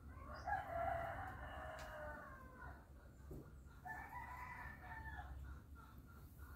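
A rooster crowing twice: a long crow of nearly three seconds, then a shorter one about a second after it ends.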